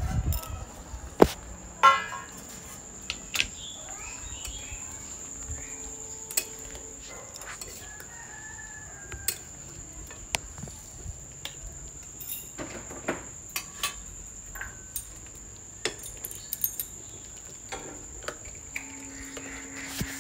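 A metal ladle knocks and scrapes against a karahi while duck curry is stirred, giving scattered sharp clinks, the loudest about a second and two seconds in. Chickens cluck and a rooster crows in the background, and a steady high-pitched whine runs underneath.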